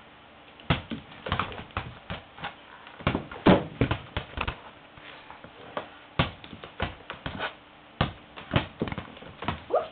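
Irregular taps and knocks in quick clusters from a pet Black Copper Marans rooster playing with a toy ball: the ball bouncing and striking, and his pecks at it. A short pitched sound comes near the end.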